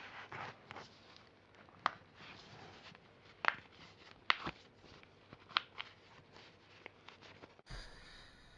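Joints cracking: a series of sharp single pops, about seven spread over several seconds, some in quick pairs.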